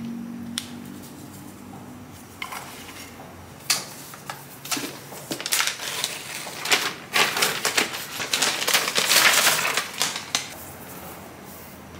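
Crinkling and rustling of a new MacBook Air's stiff protective wrap as it is peeled off, in irregular crackles mixed with sharp clicks and taps that get busiest toward the end.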